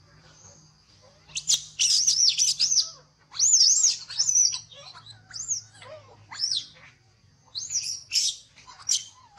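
Young long-tailed macaques wrestling, with repeated high-pitched squeals in short clusters of arching calls starting about a second in, loudest early and then in shorter bursts. A steady high insect drone runs underneath.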